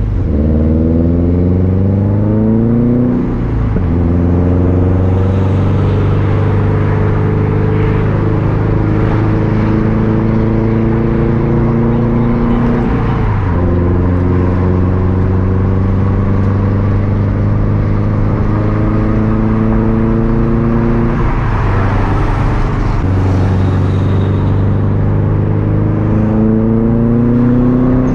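Turbocharged 2.5-litre flat-four of a 2013 Subaru WRX STI running through a Tomei unequal-length exhaust with its rumble. The engine pulls up in pitch, drops sharply at an upshift about three seconds in and again around thirteen seconds, holds a fairly steady pitch in between, and climbs again near the end.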